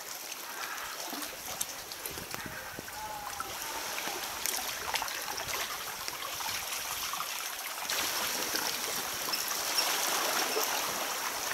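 Seawater sloshing and lapping against rock walls around a sea kayak, with small splashes and drips; it grows louder about eight seconds in.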